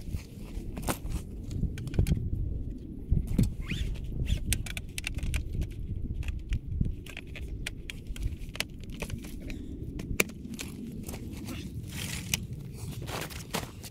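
Handling noise from setting up a folding camp stretcher bed: scattered clicks, knocks and scrapes from the frame and its fabric bed, with a steady low rumble underneath.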